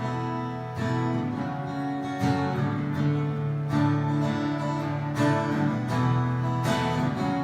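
Acoustic guitar strumming chords, starting suddenly: the instrumental introduction of a worship song, before the singing comes in.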